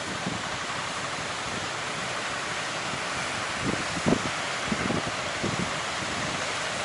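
Sea surf and waves washing under a steady wind. Gusts buffet the microphone with a few low thumps around the middle, the strongest about four seconds in.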